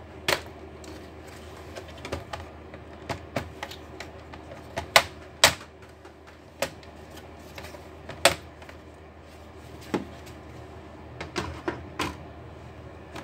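Irregular sharp clicks and taps of hard plastic and hand tools on an Acer Nitro laptop's casing during hinge repair, a dozen or so over a few seconds each, some in quick pairs, over a steady low hum.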